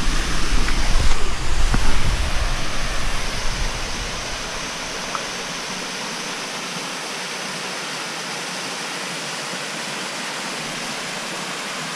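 Small woodland waterfall splashing over rock ledges into a pool: a steady, even rushing. A low rumble sits under it for the first few seconds and then fades out.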